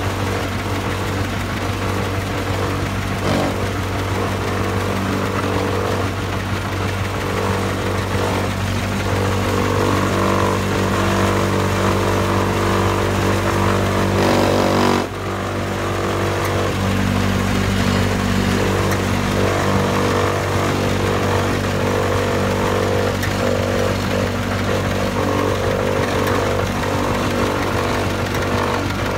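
Lightweight concrete wall panel extruder running steadily as it extrudes a panel: a steady engine drone over the machine's mechanical rattle. About halfway through the sound briefly swells, then dips.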